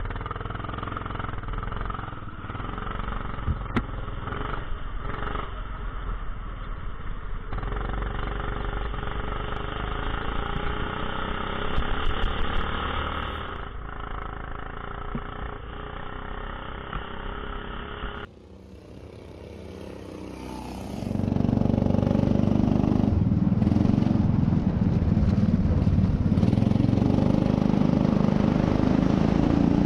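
Rental go-kart engine running, heard from on board as the kart drives, its pitch rising and falling with the throttle. About eighteen seconds in the sound cuts off, then comes back louder with a heavier low rumble.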